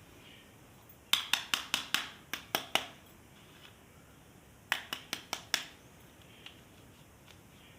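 Sharp clicks from plastic toy parts being handled: a quick run of about eight, then about two seconds later a shorter run of five.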